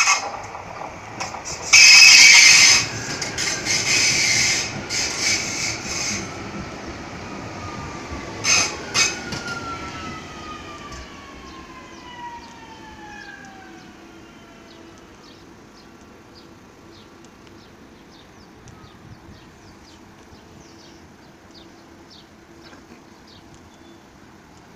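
Metrovalencia series 4300 electric train arriving: several loud horn blasts in the first few seconds, the loudest about two seconds in, then the traction motors' whine falling steadily in pitch as the train slows. Near the end only faint clicks of wheels over rail joints remain.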